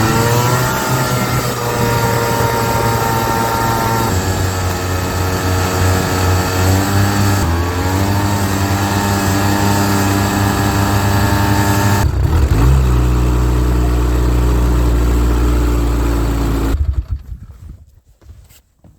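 Snowmobile engine running under way, its pitch climbing as it speeds up and easing back, then settling to a lower steady note before it cuts off abruptly near the end.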